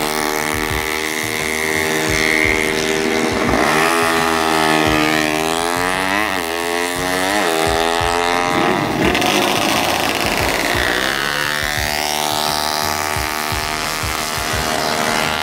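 High-revving drag-racing motorcycle engine at full throttle down the strip, its pitch climbing and then dropping back several times as it runs through the revs.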